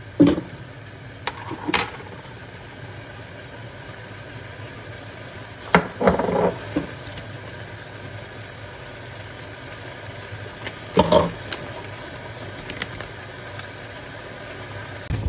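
Kitchen handling sounds as spices are added to chicken in a glass bowl: a few short clinks and knocks of a metal spoon and containers against the bowl, over a steady low background hum.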